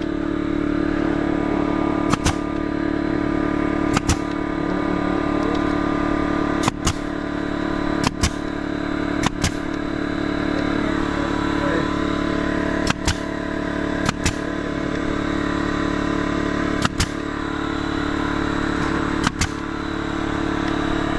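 Ridgid cordless narrow-crown stapler firing crown staples through the turf edge into a wooden edging board: about nine sharp shots, most a quick double snap, spaced one to three seconds apart. A steady engine hum from running machinery underlies it.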